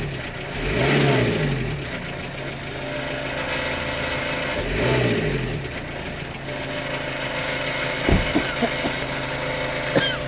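Renault Kangoo 1.9 dCi four-cylinder diesel engine idling, revved up twice about four seconds apart, each time rising and falling back to idle. A few short knocks near the end. The owner reports an abnormal engine noise under acceleration.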